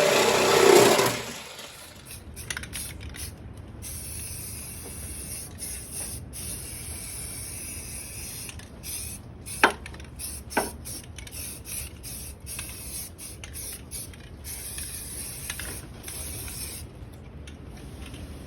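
Aerosol can of self-etching primer spraying: a steady hiss in bursts that start and stop again and again, with two sharp clicks about halfway through. A loud motor runs for about a second at the start, then cuts off.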